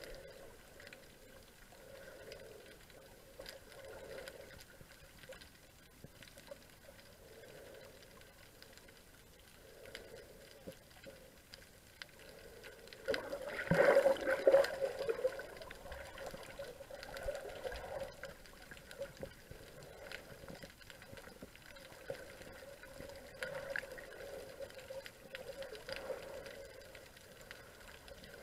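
Muffled underwater water noise picked up by a submerged camera: soft sloshing that swells and fades every couple of seconds, with faint scattered clicks. About halfway through, a louder surge of water noise.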